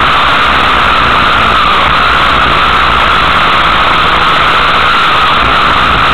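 Loud, steady engine and running noise heard from onboard a racing vehicle driving on a dirt track.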